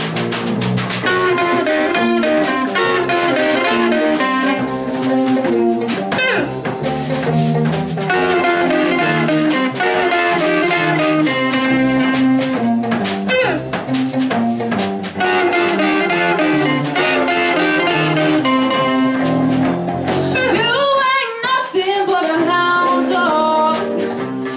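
Live rock band playing a blues-rock instrumental break: electric guitar solo over drum kit and bass guitar. A singing voice comes in about 21 seconds in.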